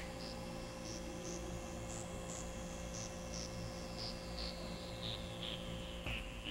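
Soft electronic background music: pairs of short high beeps repeat about once a second, sweeping slowly up in pitch and back down, over a steady hum.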